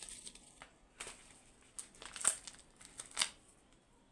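Faint, scattered crinkling and crackling of a parcel's shipping label being peeled off, with a few sharper ticks about one, two and three seconds in.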